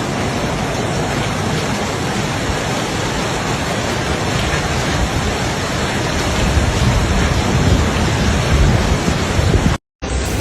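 Steady, loud rush of water in a flood, with heavier low rumbling in the last few seconds before it cuts off abruptly.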